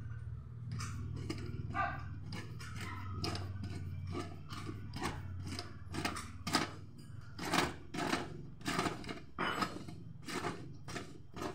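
Homemade manual screw press for patching an inner tube being tightened down: irregular metal clinks and knocks as the pipe handle turns on the threaded rod, coming louder and closer together in the second half, over a low steady hum.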